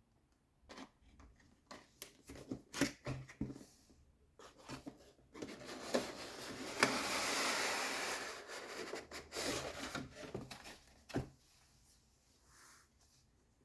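Keyboard packaging being handled and unpacked: scattered clicks and knocks of the box and contents, then several seconds of rustling and sliding from about five to ten seconds in, with a last knock near the end.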